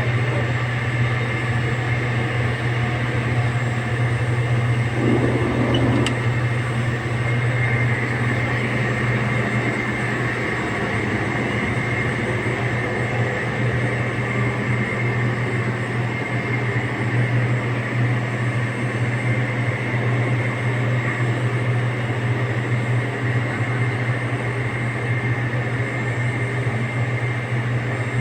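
Pellet-fired steam boiler plant running: a steady machinery drone with a strong low hum under an even rushing noise, and a single brief click about six seconds in.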